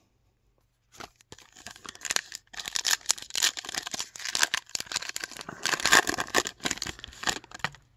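Baseball card pack wrapper crinkling and tearing as it is ripped open by hand: a dense run of crackles that starts about a second in.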